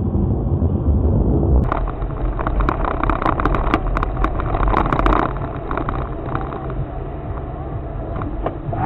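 Car driving, heard from inside the cabin through a dashcam microphone: steady engine and road noise. About two seconds in the sound changes, and a run of sharp, irregular clicks follows for about three seconds.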